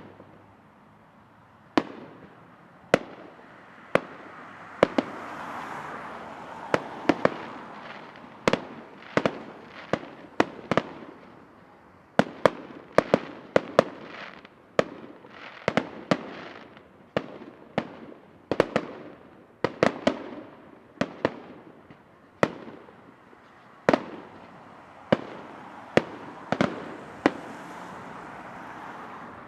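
Fireworks display: dozens of sharp shell bursts in an irregular barrage, at times several a second, with a crackling hiss filling the gaps between bangs.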